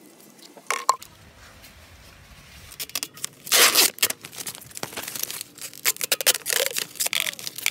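Clear plastic bag being handled, crinkling and rustling in quick crackles from about three seconds in, loudest a little after. A couple of sharp knocks come about a second in.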